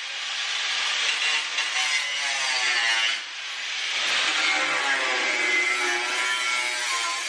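Angle grinder cutting through the sheet-metal body of a Nissan S13, its whine wavering in pitch as the disc loads up in the cut, with a harsh hiss. It eases off briefly about three seconds in, then builds back up.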